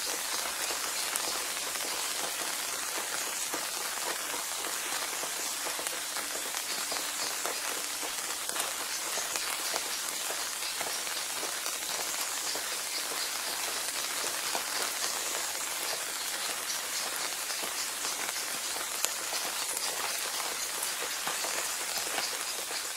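Recording of steady rain falling on a surface: an even hiss sprinkled with many tiny drop ticks, laid as the audible track of a silent subliminal.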